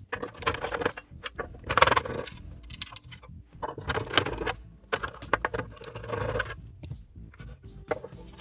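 Corner screws being backed out of the hot plate's metal case one after another, a short rattly burst for each of about four screws, with small metallic clicks and clinks of the parts being handled between them.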